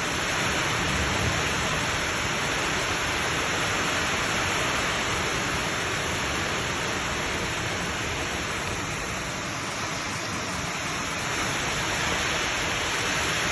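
Heavy rain pouring down in a strong windstorm: a steady, even rush of noise that eases slightly for a couple of seconds past the middle.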